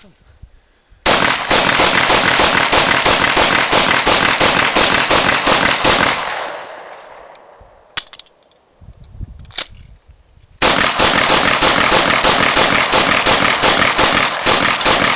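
Grand Power K100 9 mm pistol fired in two long rapid strings of about five shots a second, each string ending in an echoing tail. A couple of sharp clacks fall in the pause between them.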